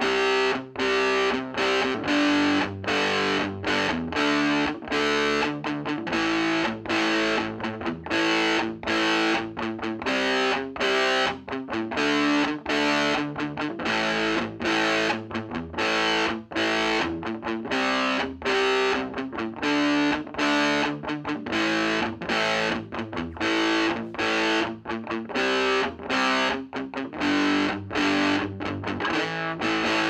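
Electric guitar played through an Ever Play RG-60 solid-state combo amp on its overdrive channel: a distorted rock riff of short, choppy chords in a steady rhythm.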